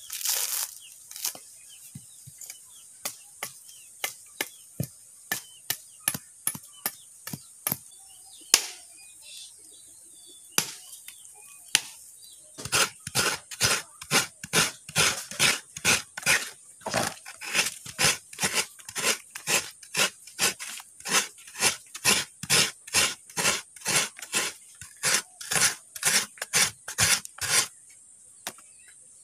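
Coconut meat being grated on a metal grater, with steady rasping strokes about three a second that start about twelve seconds in. Before that there are only sparse clicks and snaps.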